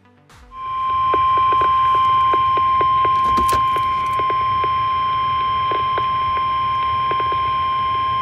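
Weather radio's single steady warning alarm tone, the 1050 Hz alert tone, sounding from about half a second in with faint clicks of static under it. It signals that a National Weather Service warning broadcast is about to follow.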